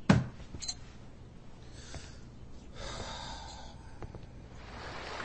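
A short sharp sound right at the start and a smaller one just after, then quiet room tone with a low hum and the shuffle and rustle of people getting up from chairs and moving about.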